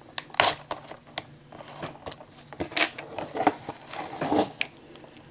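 Fingers picking and scratching at the plastic shrink wrap on a DVD case, irregular small clicks and crinkly scrapes.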